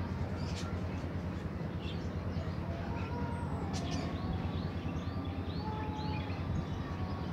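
Wind buffeting the microphone in a steady, fluttering low rumble, with small birds chirping over it; near the middle one bird gives a quick run of about six short chirps.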